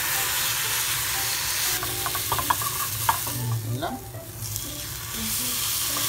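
Marinated beef steak sizzling in a hot, oil-free hard-anodized nonstick frying pan, with a few light clicks and scrapes of the utensil on the pan as the steak is turned. The sizzle thins for about a second past the halfway point while the meat is lifted, then picks up again.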